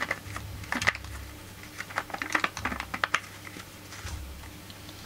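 Irregular light clicks and taps, with a cluster of them about two to three seconds in, over a low steady hum.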